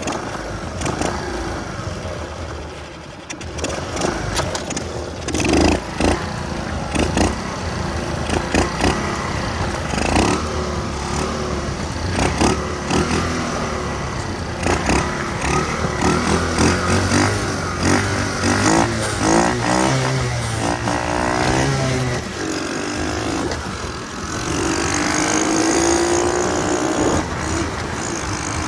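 Small single-cylinder engine of a mini Trail 90 bike running under way, with wind buffeting the microphone and frequent knocks. Engine revs climb near the end.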